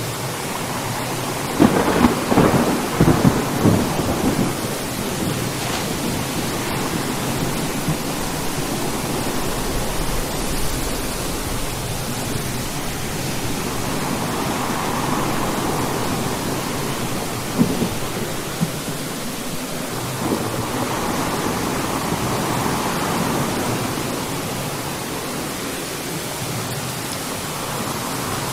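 Thunderstorm: steady rain with thunder. A sharp, crackling thunderclap about two seconds in, and later rumbling swells with another short crack just past halfway.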